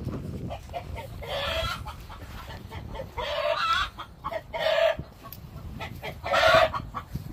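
A rooster calls four times in short cries about a second and a half apart, not its usual crow. The keeper ties the changed call to the rooster guarding a nest of eggs with a hen.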